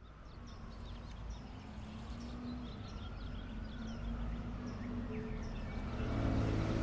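Outdoor street ambience fading in: small birds chirping over a steady low hum of vehicle traffic.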